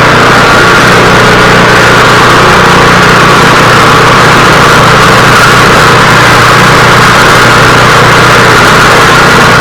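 Snow thrower's small gasoline engine running steadily and loudly at a constant speed, with no change in pitch.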